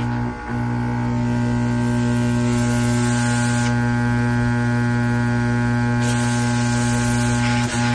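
SCULPFUN S10 30 L/min air assist pump, a small electric air compressor for a laser module, running with a steady hum and a hiss of air. The hum dips briefly about half a second in, and the hiss grows louder a few seconds in and again near the end.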